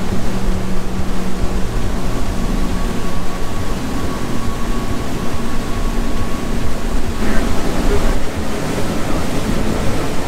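Big outboard engines on a fast boat running under way, a steady drone mixed with wind and rushing water. The sound shifts about seven seconds in.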